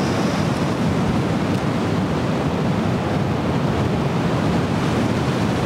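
Strong wind buffeting the microphone: a steady, unbroken low rumble with hiss above it.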